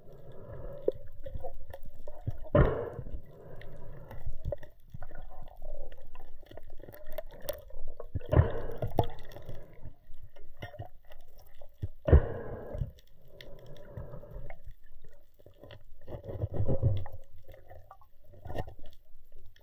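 Underwater water noise heard through a mask-mounted camera: a low rumble with several gurgling rushes about a second long, each louder than the rumble, as a speared fish is handled on the spear shaft, plus a few light clicks.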